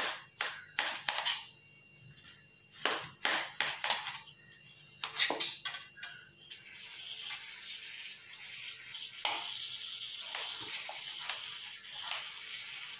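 Kitchen knife cutting through raw pumpkin and knocking on a stainless-steel cutting board, a string of sharp clicks and knocks. About halfway through, a steady hiss sets in under the cuts.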